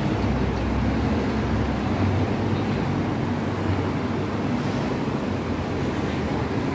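Steady street ambience, mostly a low traffic rumble, with no distinct events standing out.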